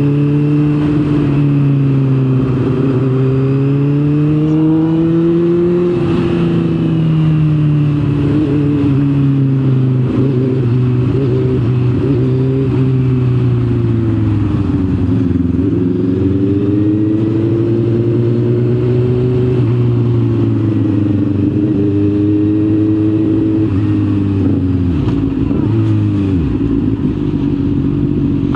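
Honda motorcycle engine heard from the rider's seat while riding. Its pitch rises and falls over and over as the rider opens and closes the throttle through the gears, and it drops sharply near the end as the bike slows.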